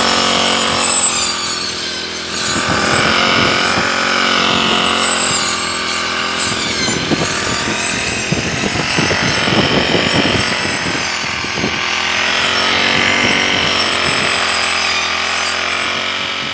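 Brush cutter engine running hard while its blade cuts through tall grass, the engine speed rising and falling as it bites into the stems.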